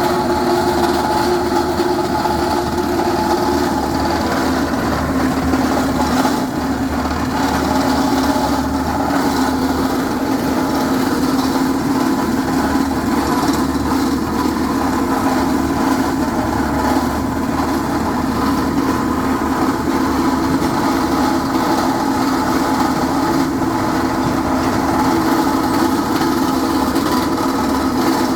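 Drilling rig running steadily as it bores into a reinforced-concrete foundation, grinding through the concrete and steel rebar. A continuous mechanical drone whose main pitch drops slightly about four seconds in.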